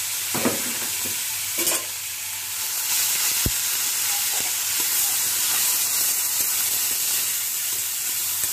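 Julienned carrots sizzling in a steel kadhai on a gas stove. A couple of sharp clinks come in the first two seconds, then from about three seconds in a metal spatula scrapes and stirs the carrots against the pan.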